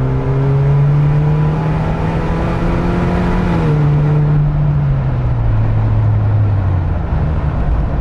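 A 2020 Jeep Wrangler's 2.0-litre turbo four-cylinder, breathing through an AFE axle-back muffler-delete exhaust, heard from inside the cabin with the windows up while driving. The engine note climbs in pitch, steps down sharply about three and a half seconds in, then sinks slowly as the revs fall.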